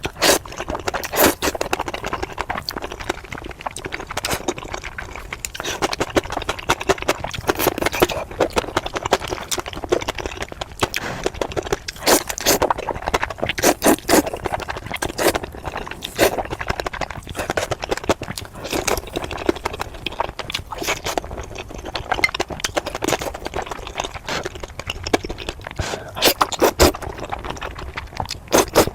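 Close-miked eating sounds: a person chewing and smacking food, with many irregular clicks and wet mouth noises.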